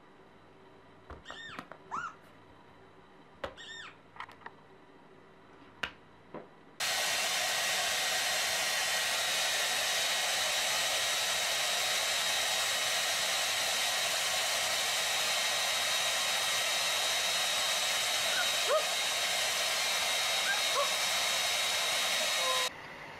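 Handheld hair dryer running steadily with a faint motor whine. It switches on about seven seconds in and cuts off suddenly near the end. Before it, a few short high-pitched sounds.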